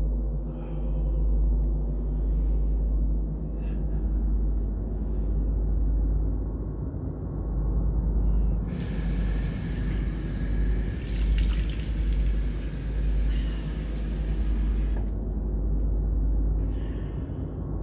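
Deep, steady rumbling drone with held tones above it, an ominous horror-style cue for the toilet said to be growling. From about nine to fifteen seconds a rushing, water-like hiss joins in.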